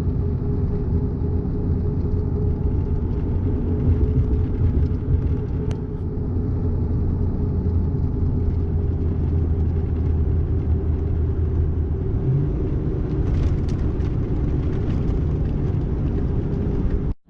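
An engine running steadily with a low, even rumble, cutting off abruptly at the end.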